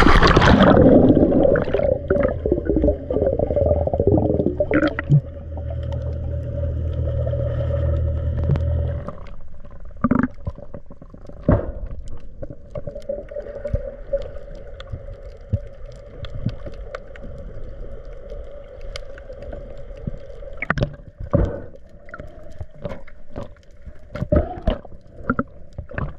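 A camera plunges into the sea with a loud splash, then underwater sound through the submerged camera: a steady muffled tone, a low hum that stops about nine seconds in, and scattered sharp clicks and snaps.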